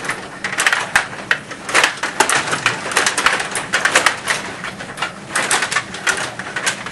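Rod-operated table hockey game in play: players' rods being pushed and twisted and the puck knocked about, making a rapid, irregular run of plastic-and-metal clicks, clacks and rattles.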